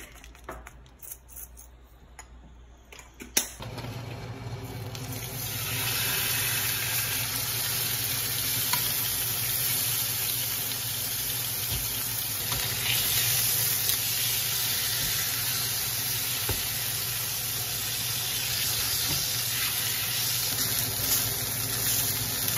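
Beef steak searing in hot oil in a frying pan, sizzling steadily. A few small clicks and one sharp knock come first, and the sizzle sets in about four seconds in.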